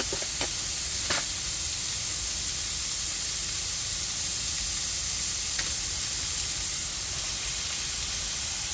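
Minced beef and diced onion sizzling as they fry in a pan over a gas stove, with a few sharp utensil clicks against the pan in the first second or so.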